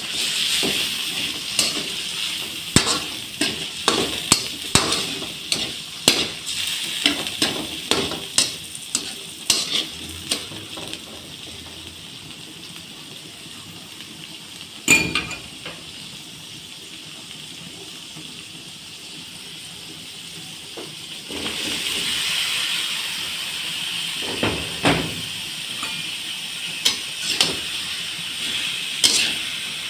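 Shrimp and garlic sautéing in oil in a stainless steel wok: a steady sizzle, with a metal spatula scraping and clinking against the pan in quick succession through the first third. The stirring stops for a while, with one sharp clink halfway, then the sizzle grows louder and the spatula clinks return near the end.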